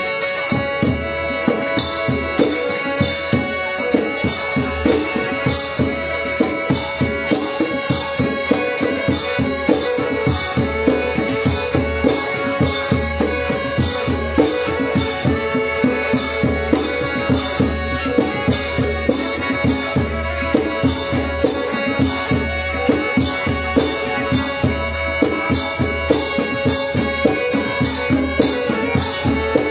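Live Northern Khmer mamuot ritual music: hand drums beat a fast, even rhythm with bright, sharp strikes on top, over one steady held melodic tone that runs without a break.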